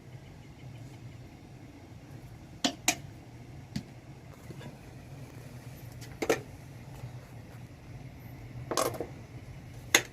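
Several sharp clinks and clicks of plates and cutlery a few seconds apart, over a steady low hum.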